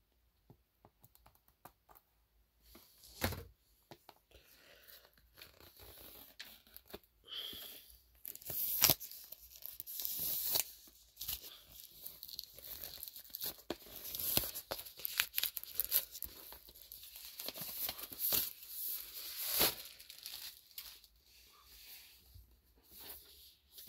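Tissue paper rustling and crinkling as hands unfold it and push it aside in a cardboard box, in irregular handfuls, with a few sharper knocks and crackles from the box being handled.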